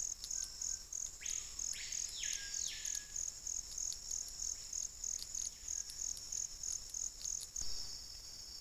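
Rainforest insects chirping in a steady high pulse, about three chirps a second, with two short rasping calls in the first three seconds. Near the end the pulsing gives way to a continuous high insect trill.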